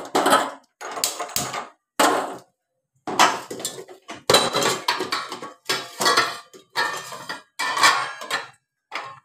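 Metal kitchenware clattering and clinking in irregular bursts, about a dozen over several seconds.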